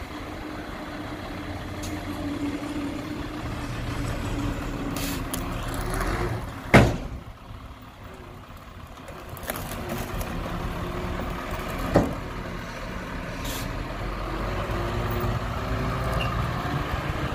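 Diesel dump truck engine running steadily while the tipper unloads soil. There is one loud bang about seven seconds in and a lighter knock about twelve seconds in, and the engine grows louder again near the end as the truck pulls away.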